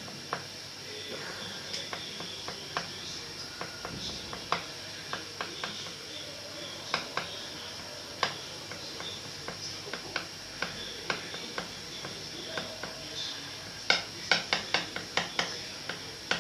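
Scattered light clicks and taps of a small utensil against a table or board while letters are pressed into play dough, with a quicker run of louder taps near the end.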